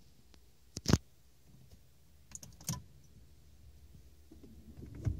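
A few sharp clicks and light knocks inside a small car's cabin. The loudest comes about a second in, a cluster follows near three seconds, and another comes near the end, with a faint low hum rising shortly before it.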